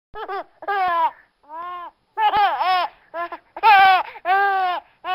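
A baby laughing in a string of short, high-pitched squealing calls, each rising and falling in pitch, with short breaths between them.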